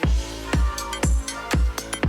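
Electronic dance music with a steady kick drum about twice a second under sustained synth chords.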